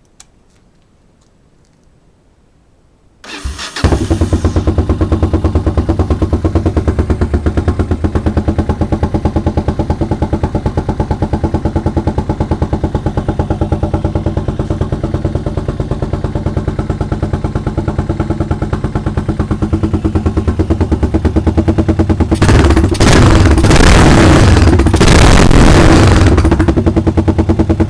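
Yamaha XT600E single-cylinder four-stroke engine in a cafe-racer motorcycle, cranked and started about three seconds in, then idling steadily with distinct individual firing pulses. From about 22 s it is revved several times with the throttle blipped, then drops back toward idle near the end.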